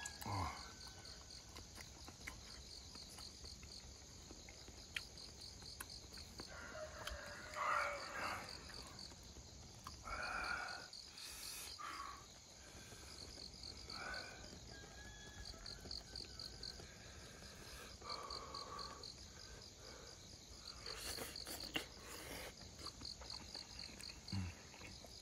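Insects chirping steadily in a fast, even pulse, with a few short, louder noises now and then.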